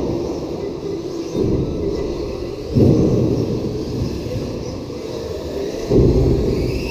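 Radio-controlled cars running on an indoor carpet track, heard as a steady low rumble with sudden louder surges about a second and a half, three and six seconds in.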